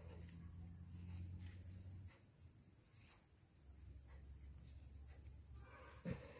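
Very quiet room tone with a steady high-pitched whine and a faint low hum, and a short soft sound near the end.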